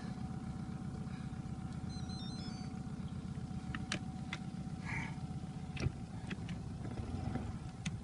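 A motor running steadily at low revs, with a few faint clicks about four and six seconds in.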